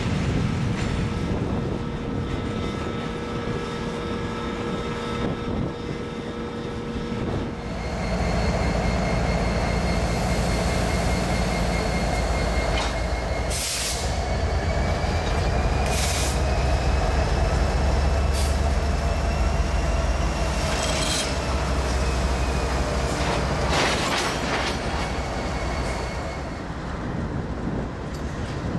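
Diesel freight locomotives running at low speed during switching, with steel wheel flanges squealing in a long, slowly rising and falling tone through the middle, and several sharp metallic clanks of cars and couplers taking up slack.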